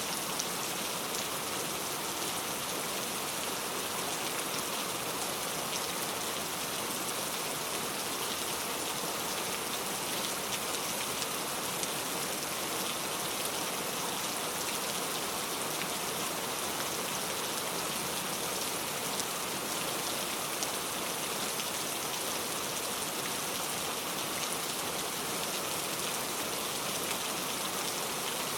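Heavy rain falling steadily: a dense, even hiss with faint ticks of single drops through it.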